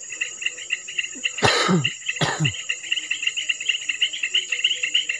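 Evening insect chorus: a rapid, steady pulsing chirp over a continuous high-pitched whine. About a second and a half in, two short louder sounds with falling pitch cut through it.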